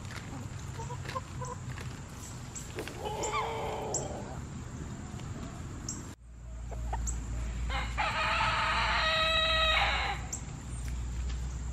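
Backyard chickens: a short call about three seconds in, then the loudest sound, a rooster crowing, one long steady crow of about two and a half seconds near the end.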